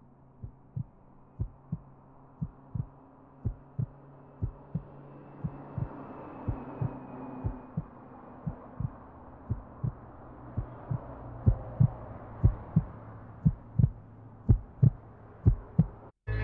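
Heartbeat sound effect: a low double thump, lub-dub, about once a second, growing louder toward the end over a muffled wash of noise that swells, then cutting off suddenly.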